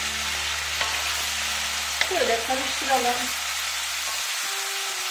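Cubes of marinated beef and tail fat sizzling steadily in a hot granite-coated sac pan, stirred with a wooden spatula that knocks and scrapes against the pan a few times between about one and three seconds in.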